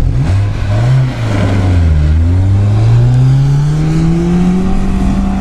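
Renault Duster's engine revving at full throttle as it climbs a steep sand hill. The pitch dips briefly twice in the first two seconds, then rises steadily and holds high, over the hiss of tyres in sand.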